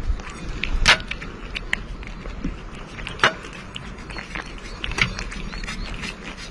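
Cat eating wet food from a metal dish: wet chewing and lapping with sharp clicks against the metal, the loudest about one, three and five seconds in.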